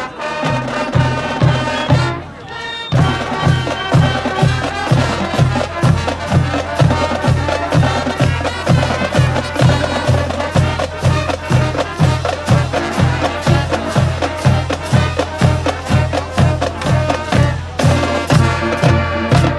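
Marching band playing: brass melody over a steady bass drum beat of about two beats a second. The sound dips briefly about two seconds in, then the full band comes back in.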